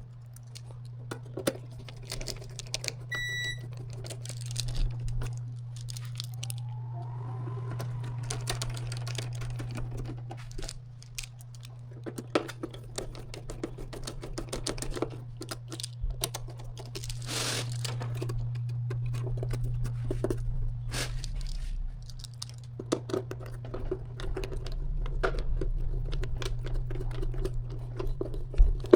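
Irregular small clicks, taps and rattles of screws and metal panels being handled and screwed onto a spectrum analyzer's casing, over a steady low hum. A short high beep sounds once about three seconds in.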